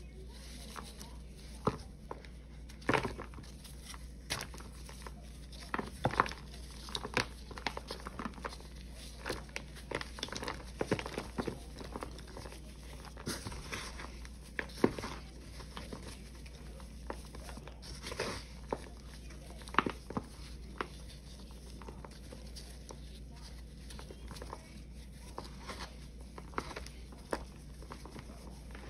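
Gloved hands crushing and crumbling dry, chalky paste balls made of Ajax cleanser powder with Pine-Sol and Palmolive: irregular crunches and crackles as the lumps break up and the crumbled powder is raked through.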